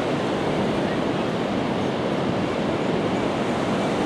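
Steady rush of Pacific surf breaking on a sandy beach with the tide coming in, mixed with wind buffeting the microphone.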